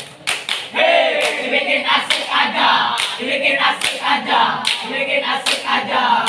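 A troop of scouts chanting a yell in unison during a step dance, with sharp claps on a steady beat about every 0.8 s.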